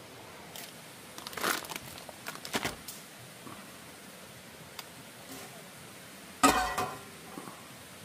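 Crinkling and rustling of handled packaging with a few light clicks, then one sharp clink with a brief ring about six and a half seconds in.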